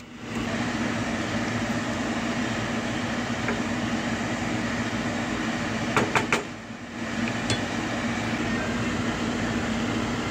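A steady mechanical hum with a constant low drone, like a kitchen fan or appliance running. About six seconds in, a few sharp metal clanks as the lid is set on the sauté pan.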